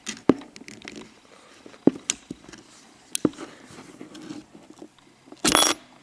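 Small screwdriver tip clicking and scraping against a plastic interior door handle as a retaining piece is pried out of it: a handful of sharp separate clicks, then a louder, brief rattle near the end.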